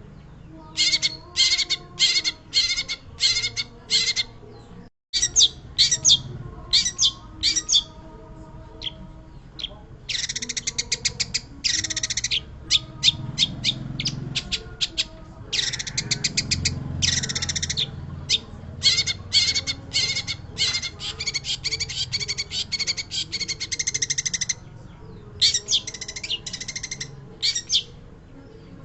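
Long-tailed shrike singing in bursts of rapid, harsh, chattering notes, with short pauses between runs and two longer runs midway and later on. The audio cuts out for a moment about five seconds in.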